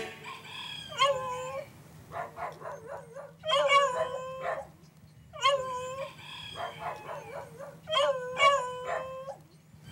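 Dog barking and howling in about six bursts of short, pitched yelping calls.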